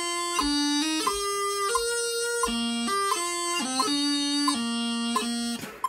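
Bagpipe practice chanter playing a pipe tune: a single reedy melody of held notes broken by quick grace notes, with no drones. The playing stops just before the end.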